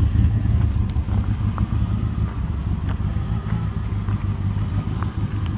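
The V8 engine of a 1988 Dodge Ram D100 idling steadily, a low even rumble through a freshly fitted Thrush glass-pack muffler that is not yet broken in and still kind of quiet.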